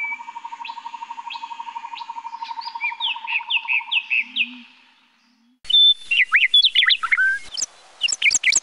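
Small songbirds chirping and singing in quick repeated notes over a steady, rapid trill. About five seconds in this fades out, and louder, quicker chirping cuts in suddenly.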